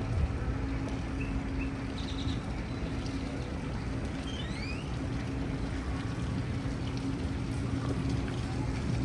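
Steady outdoor ambience: an even rushing noise with a low hum underneath, and two short rising bird chirps about four to five seconds in.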